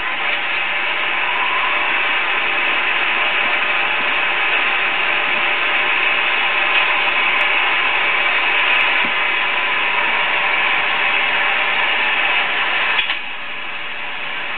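35mm cinema film projector running, a steady mechanical clatter that drops off sharply with a click near the end.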